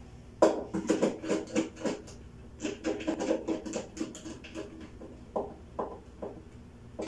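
Hands scratching and rustling as they work an electrical wire into the terminal of a small circuit breaker on a wiring board: a quick run of short scraping strokes, then three light clicks near the end.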